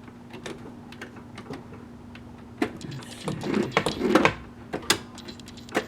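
Irregular mechanical clicks and knocks from the stitch-style selector of a Singer Touch & Sew 750 sewing machine being turned by hand, over a faint steady hum. A louder cluster of knocks comes about three to four seconds in, and there is a sharp click near the end.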